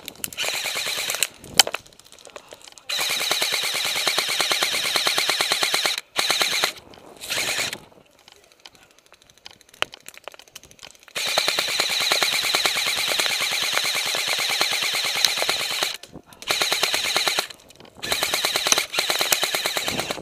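An airsoft M249 light machine gun replica firing long full-auto bursts of rapid, even clicks and cracks, about seven bursts with short pauses between them. The longest burst runs for about five seconds.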